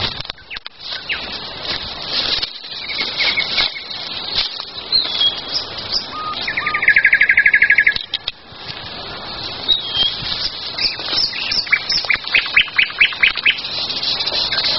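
Several songbirds singing, with short chirps and whistles throughout. About halfway through comes a loud, fast trill of evenly repeated notes, and near the end a quick series of sharp rising notes.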